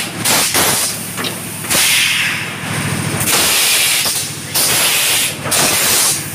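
Fully pneumatic PET jar blow-moulding machine cycling: several loud hisses of compressed air of varying length, each starting sharply, as its valves blow and exhaust, over a steady low machine hum.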